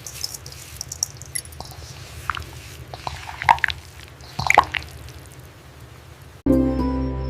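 Wet, squishy food-preparation handling, with small clicks and a few sharper knocks around the middle. About six and a half seconds in, it cuts abruptly to soft background music with sustained tones.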